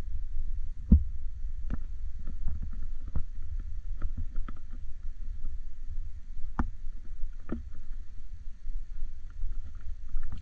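A low, steady rumble of wind buffeting the microphone, with scattered irregular knocks and taps from footsteps on a boat's fibreglass deck and from handling, the loudest about a second in.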